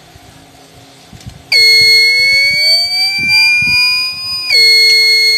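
An inverter's built-in alarm buzzer sounding a loud, steady high-pitched tone. It starts about one and a half seconds in and holds for about three seconds, breaks off briefly, then sounds again for just over a second. It is the inverter's fault alarm going off as it is powered up.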